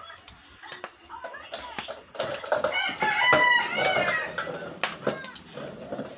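A rooster crowing once, a single long call of about two seconds starting about two seconds in, over scattered faint clicks.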